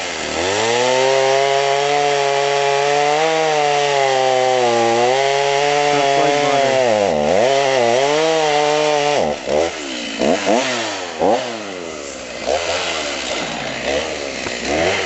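Stihl MS 290 two-stroke chainsaw held at full throttle through a cut for about eight seconds, its note dipping a few times as the chain loads in the wood. About nine seconds in it comes out of the cut and is blipped up and down several times, dropping back toward idle between revs.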